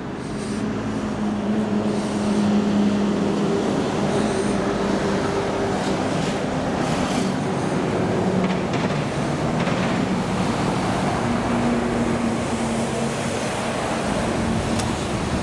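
Road traffic with a large vehicle's engine running close by, its pitch dipping and then rising again about nine seconds in.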